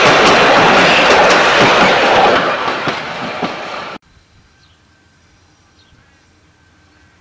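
Heritage passenger carriages rolling past close by, their wheels clicking in a regular rhythm over the rail joints, the noise fading as the train draws away. About four seconds in it cuts off suddenly to a much quieter background with a few faint chirps and a faint steady hum.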